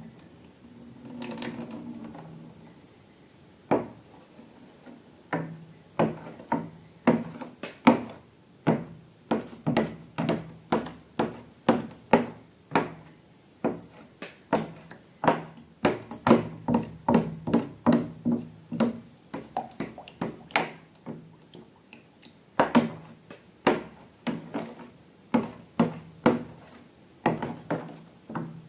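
A series of sharp taps and knocks, about one or two a second, starting a few seconds in, pausing briefly a little past the middle, then carrying on.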